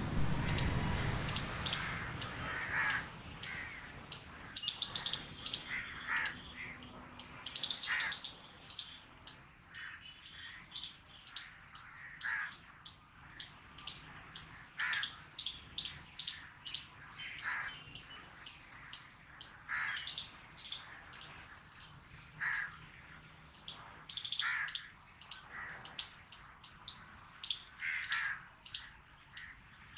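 A squirrel barking: a long run of short, sharp calls, about two a second, with a brief lull a little past the middle.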